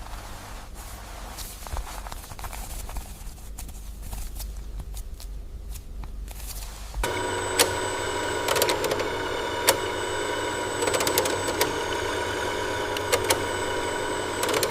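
Factory machinery running: a low rumble, then an abrupt change about seven seconds in to a louder steady hum with several held tones and sharp clicks.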